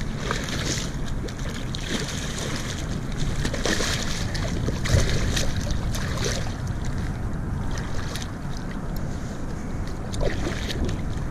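Steady wind buffeting the microphone over water lapping against a kayak hull, with a few brief clicks scattered through.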